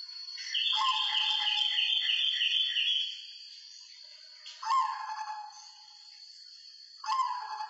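White zebra dove (perkutut) singing: a fast run of repeated cooing notes, then two shorter falling coos, one near the middle and one near the end.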